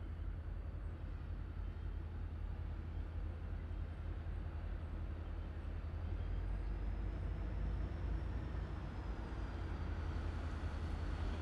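Steady low rumble of a train's diesel locomotives, slowly growing louder as they approach.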